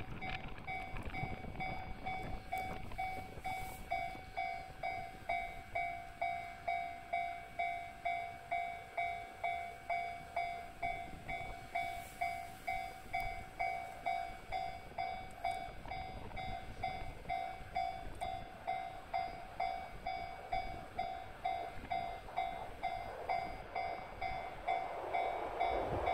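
Railway level crossing warning bell ringing in a steady repeating ding, a little under two strokes a second. Near the end the rumble of an approaching DF200 diesel locomotive with its freight train grows underneath it.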